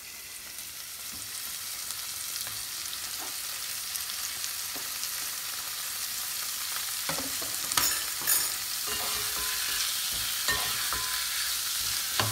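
Chopped onion and diced meat sizzling as they fry in a pot, the sizzle growing steadily louder. In the second half a spatula stirs and knocks against the pot a few times.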